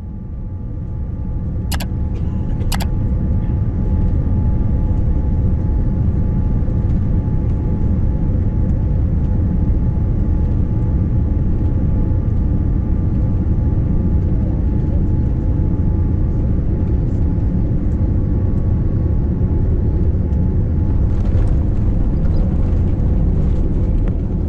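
Boeing 787 airliner cabin noise on final approach: a steady loud rumble of engines and rushing air that fades in over the first few seconds. Two sharp clicks come about a second apart near the start.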